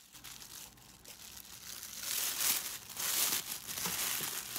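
Orange tissue paper rustling and crinkling as pleated layers are pulled apart and fluffed up into a paper flower. It grows louder about two seconds in.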